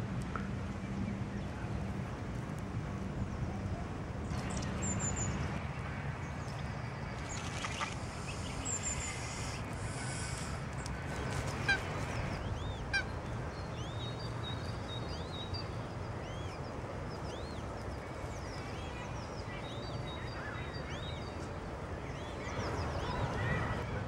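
Eurasian coot family at the nest: a couple of sharp short calls and many high, thin peeps of the chicks, over a steady low rumble.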